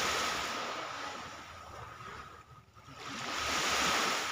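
Small waves breaking and washing up on a beach. One wash fades over the first couple of seconds, and the next builds from about three seconds in to a peak near the end.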